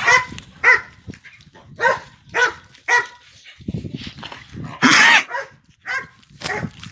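A dog barking repeatedly in short, sharp barks, with a louder rushing burst about five seconds in.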